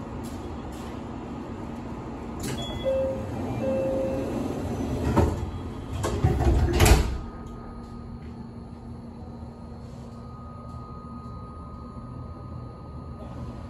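Passenger side door of a JR Shikoku 8000 series express car closing: two short chime tones, then the door slides and shuts with a loud clunk about seven seconds in. Afterwards a quieter steady hum of the car with a faint steady tone.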